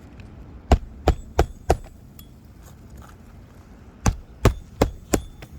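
Hand hammer striking on an asphalt-shingle roof during a shingle replacement: two runs of four sharp blows, about three a second, with a pause of a couple of seconds between them.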